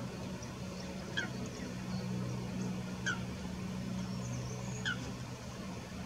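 A bird calling three times, each a short call sliding downward, about two seconds apart, over a steady low hum.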